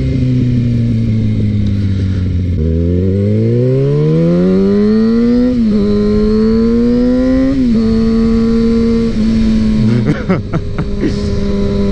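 Kawasaki ZX-6R inline-four with a Two Brothers M2 slip-on exhaust, heard loud while riding. The revs fall off, then climb again through two gear changes where the pitch steps down, and settle to a steady cruise.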